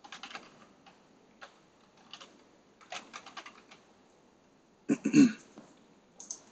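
Computer keyboard typing in short bursts of keystrokes, with a louder thump about five seconds in.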